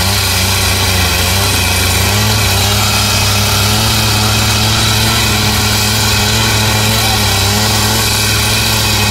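Two-stroke petrol rail saw running steadily, its abrasive cut-off disc grinding through a steel railway rail without letup.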